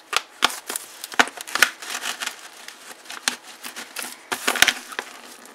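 Paper wrapping and a plastic bottle crinkling and rustling in the hands, in irregular crackles, as clear tape is slit with a pen-style craft knife.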